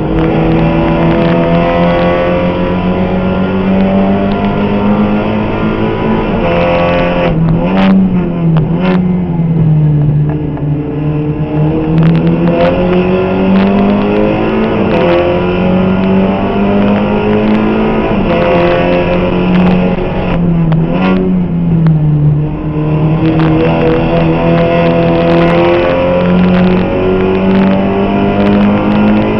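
Seat Leon Supercopa race car's turbocharged four-cylinder engine at racing speed, heard from inside the cockpit. Its note climbs with the revs and dips at each gear change, with a few sharp clicks about a quarter of the way in.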